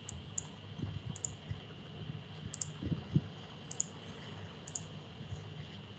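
Scattered light clicks of keys being pressed, irregular and soft, over a faint steady high-pitched hum.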